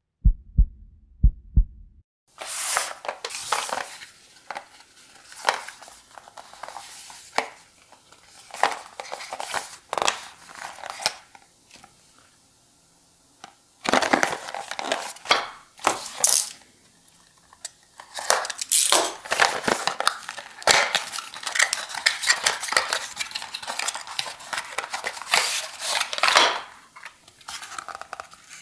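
Cardboard packaging handled close to the microphone: the box slides, its flaps open, and card creases and crinkles in irregular bursts with sharp little clicks and short pauses. A few low thumps come first, in the opening two seconds.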